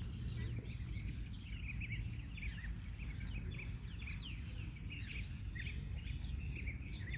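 Small birds chirping, many short calls one after another, over a steady low background noise.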